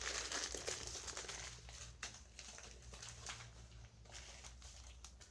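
Faint crinkling and rustling of a plastic bag, densest in the first two seconds and then thinning to scattered small clicks, over a steady low hum.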